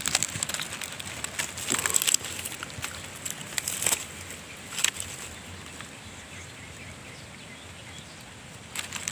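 Dry stalks and leaves rustling and crackling in short bursts over the first four seconds and once more about five seconds in, then a faint steady outdoor hiss.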